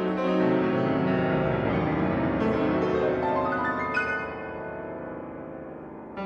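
Solo piano music: held chords, then a run of notes climbing upward, after which the playing fades and softens.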